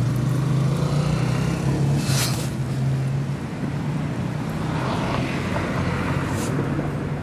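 An engine running steadily with a low hum, with a short hiss about two seconds in and a brief click near the end.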